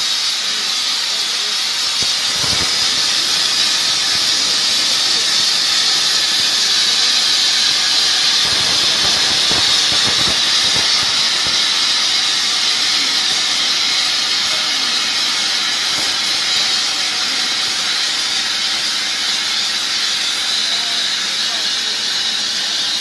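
Plasma cutting torch of a CNC pipe profile cutting machine, hissing steadily as it cuts through a large steel pipe.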